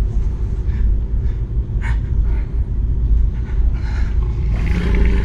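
Deep, loud low rumbling drone of film sound design, with a few short scraping or rustling noises scattered through it.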